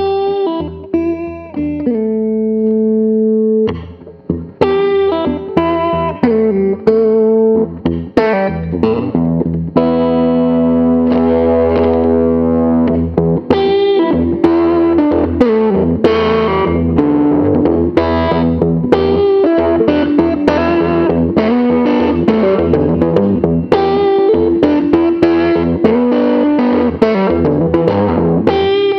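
1966 Epiphone Casino hollow-body electric guitar played through an amp: a chord held and ringing about two seconds in, then a busy picked riff of single notes and chord stabs.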